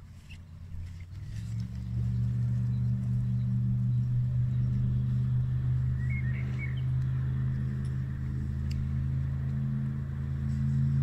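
An engine running with a steady low hum that builds up over the first two seconds and then holds. A bird chirps briefly about six seconds in.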